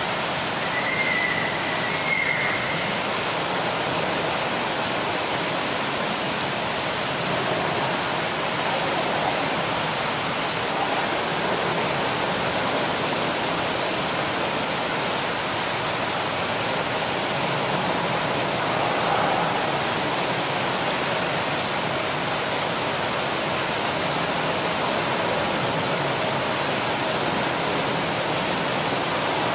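Steady rushing noise of flowing water in a penguin pool, with a few faint short high tones in the first few seconds.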